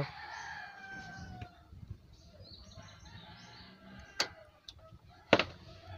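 A bird's long call falling slowly in pitch over the first second and a half, then faint chirping. Two sharp clicks come about four and five and a half seconds in, the second the loudest.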